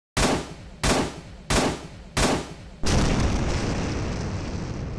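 A logo-reveal sound effect: four heavy impact hits about two-thirds of a second apart, then a long low rumble that slowly fades.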